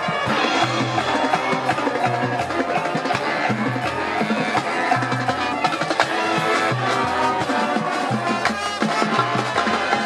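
Marching band playing live: sustained wind and brass chords over a moving bass line, with frequent sharp percussion strikes from the drums and front-ensemble mallet instruments.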